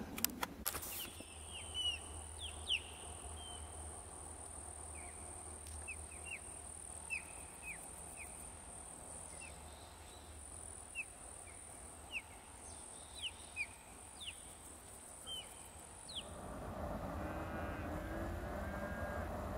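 A bird's short, high chirping calls, repeated at irregular intervals over a steady high insect buzz. Near the end a louder steady rushing noise takes over.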